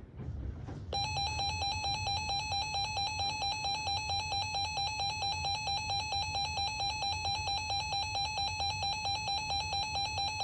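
Emergency Alert System attention tone: a harsh, loud, steady electronic beep that starts about a second in and pulses about four times a second, over a low storm rumble.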